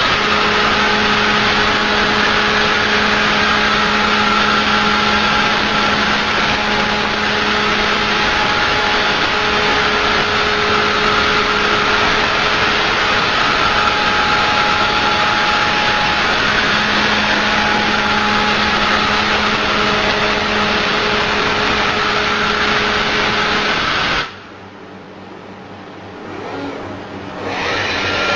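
MSG-laser hybrid welding by a robot: the arc hisses and crackles steadily over a constant hum. It stops abruptly about 24 seconds in, leaving much quieter background noise.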